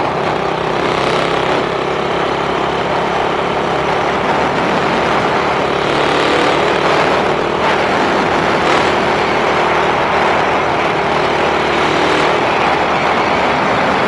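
An engine running steadily under a loud, even noise.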